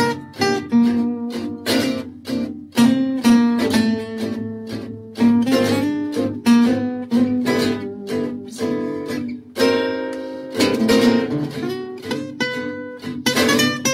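Acoustic guitar music with a steady run of quick plucked notes.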